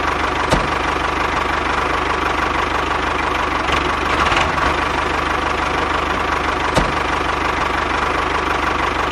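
A tractor engine running steadily at idle with a fast, even knocking beat, plus two faint clicks.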